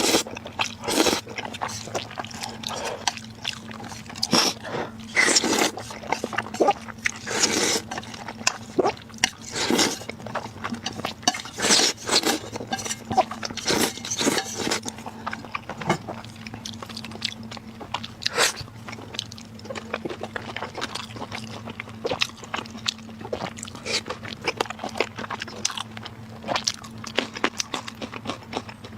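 Close-miked eating sounds: irregular chewing and biting with some louder crunches, over a steady low hum.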